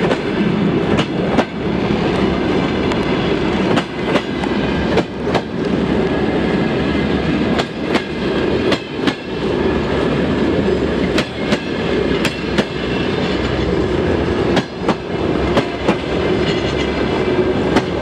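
Russian passenger train carriages rolling past close by: a steady rumble with irregular sharp clacks of the wheels over rail joints.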